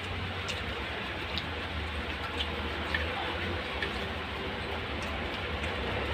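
Eating by hand: faint scattered clicks and smacks of chewing and fingers picking apart cooked fish and rice, over a steady background hum.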